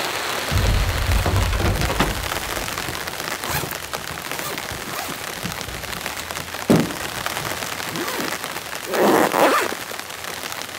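Steady rain falling, with a brief low rumble near the start. Later a single sharp knock and a short burst of rustling come from a soft cooler bag being handled and a beer can being set on the truck's tailgate.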